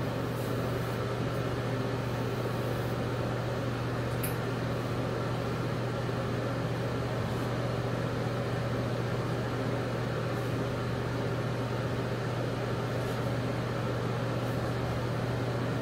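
Steady low hum with an even whooshing hiss from a running ventilation fan.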